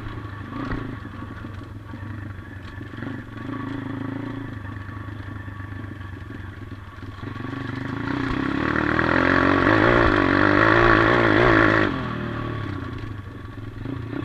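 140cc pit bike's single-cylinder four-stroke engine running while ridden over dirt. From about halfway through it rises in pitch and loudness under throttle and holds high for a few seconds, then drops off sharply and runs lower until the sound cuts off suddenly at the end.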